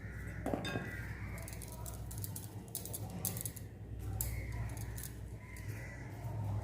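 Light clicks and taps of hands dividing and shaping soft dough into small portions on a board, over a steady low hum.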